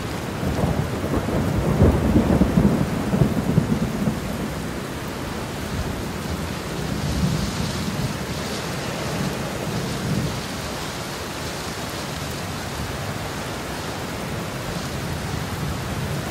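Thunderstorm: steady rain with a rolling rumble of thunder, heaviest in the first few seconds, then settling into an even downpour.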